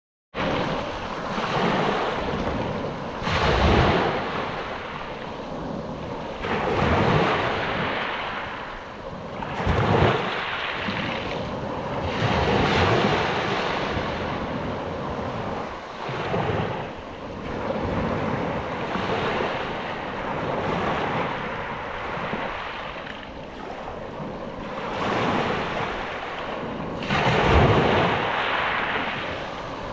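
Sea waves washing in, each one swelling and fading every few seconds.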